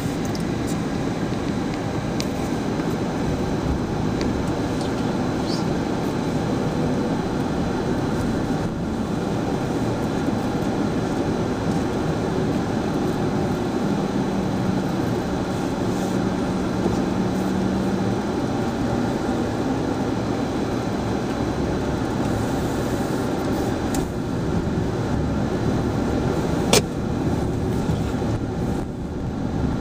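Car driving: steady road and engine noise heard from inside the cabin, with one sharp click near the end.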